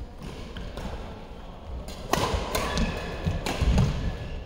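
Badminton rally: about two seconds in, a string of sharp racket-on-shuttlecock strikes begins, along with players' footsteps on the court.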